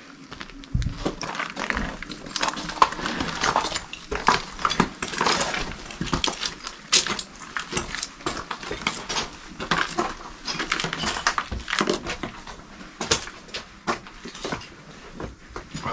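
Footsteps crunching up stone stairs littered with broken brick and tile, loose shards clinking and clattering underfoot in an irregular series of sharp clicks.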